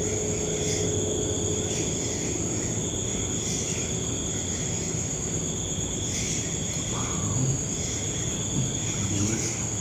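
Crickets chirping: a steady high-pitched trill that swells faintly about once a second, over a low background rumble.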